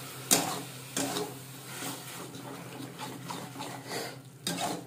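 A flat metal spatula scrapes and stirs a thick ginger-garlic and onion masala paste around an aluminium kadai, in irregular strokes about once or twice a second.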